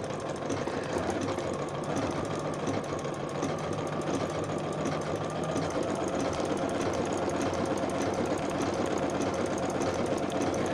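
Domestic sewing machine running steadily, stitching a small blanket stitch around the edge of an appliqué shape.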